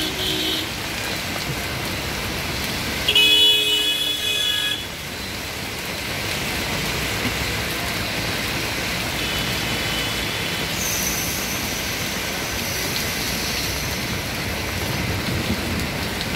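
Steady hiss of heavy rain and traffic on a waterlogged street. A vehicle horn sounds loudly for about a second and a half, about three seconds in, and a fainter horn follows near ten seconds.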